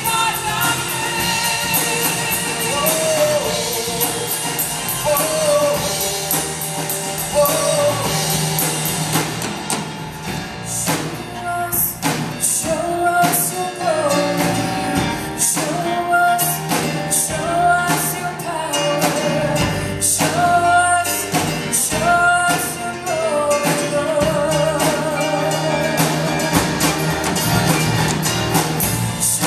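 A live worship band: a woman singing lead, her held notes wavering with vibrato, over drum kit, bass guitar, keyboard and acoustic guitar. The drum strokes stand out more sharply from about ten seconds in.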